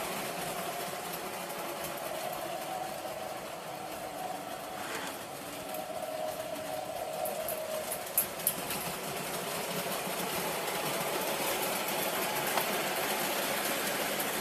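Electric model trains running on the layout's track: a steady hum of the motors and wheels, with two sharp clicks a little past halfway.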